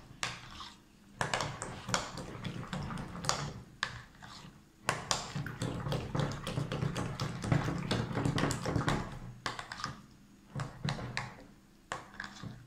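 A spoon stirring a thick mix of hung curd and cream cheese in a glass bowl, clinking and scraping against the glass in irregular taps with brief pauses.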